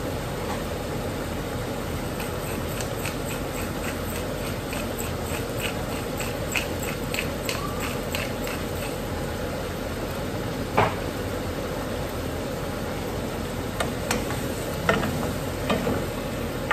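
Steady sizzling of shrimp frying in a pot over a gas flame. For several seconds a pepper grinder is twisted over the pot, giving a run of quick small clicks. A knock and a few clicks follow near the end as a wooden spoon stirs against the pot.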